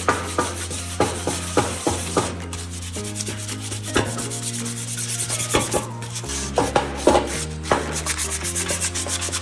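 Rough rubbing strokes of motorcycle parts being cleaned and abraded by hand, over background music with a steady bass line.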